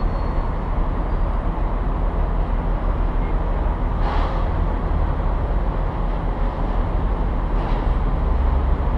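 Steady city street traffic noise with a strong low rumble, and a short hiss about four seconds in.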